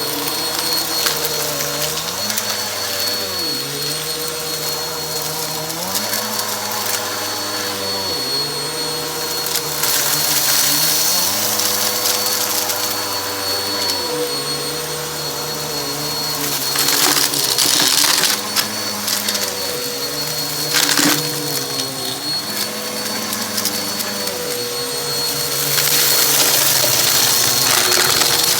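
Vacuum cleaner running steadily with a high motor whine, its lower sound shifting in pitch about every two seconds as it is pushed back and forth over carpet. Several loud crackling bursts in the second half as crunchy debris is sucked up.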